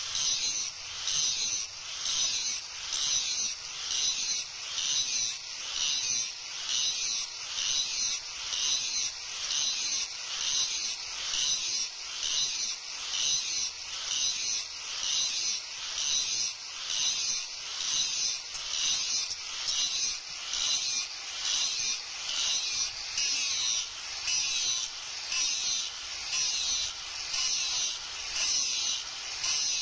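Handheld angle grinder with an abrasive disc grinding the bevel of a leaf-spring steel knife blade. A steady high grinding hiss that swells and fades a little more than once a second as the disc is worked back and forth along the blade.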